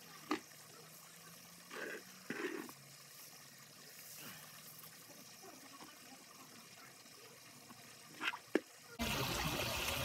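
Wet, soggy leaves being scooped by hand off a damp pool floor and dropped into a plastic bucket: a few short, soft wet splats and rustles, with a couple of sharp clicks. A louder steady rushing noise cuts in abruptly near the end.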